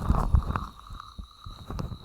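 A person's heartbeat picked up close to the chest: low thumps, loudest in the first half-second, then softer beats. A faint steady high-pitched tone sounds alongside.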